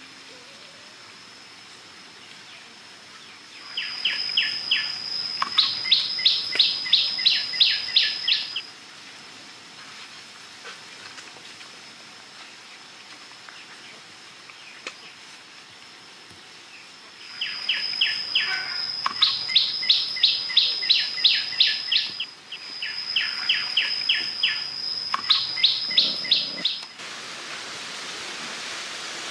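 Wildlife calls: three loud bouts, each a high held note followed by a rapid run of sharp chirps about three a second, over a faint continuous high whine. A steady hiss takes over near the end.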